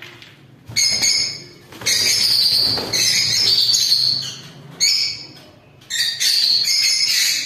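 Lovebirds calling loudly in high-pitched bouts: four bouts, the longest lasting about two and a half seconds.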